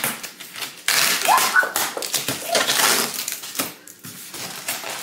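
Plastic wrapping and cardboard packaging of a walking-pad treadmill rustling and crinkling as it is handled and pulled at, with quick clicking crackles. Two or three brief squeaks come about a second and a half in.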